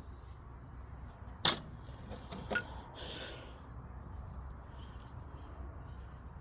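Small metal tools being handled and set down: a sharp clack about a second and a half in, a lighter click a second later, then a brief rustle.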